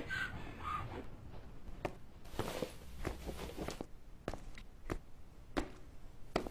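Footsteps: a series of separate, unevenly spaced steps and knocks, about ten in all, fairly faint.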